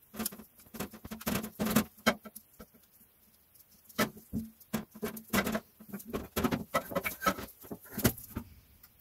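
Irregular clicks, taps and light scrapes of metal parts being handled and fitted together as the oil cooler with its new gaskets is put in place on a Mercedes OM642 3.0 V6 diesel engine, with a short lull about three seconds in.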